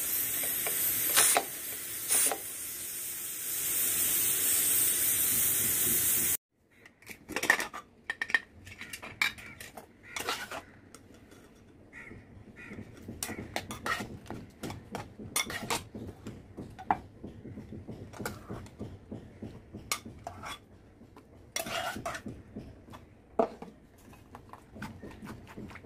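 Steam hissing loudly from a Hawkins pressure cooker as its whistle weight is lifted to release the pressure, cutting off suddenly about six seconds in. Then scattered clinks and scrapes of a steel ladle in the cooker and a spoon against a mesh strainer, pressing cooked guava.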